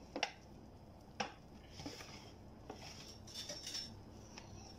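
A knife cutting pizza on a metal baking tray: two sharp clicks of the blade striking the tray, one a quarter-second in and one about a second later, then fainter taps and scraping.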